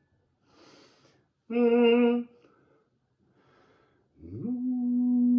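A man singing the note B: first a short wavering note, then after a breath a slide up from low into a long, steady held tone. The sounds are toning for sound healing, meant to make the listener's skull vibrate.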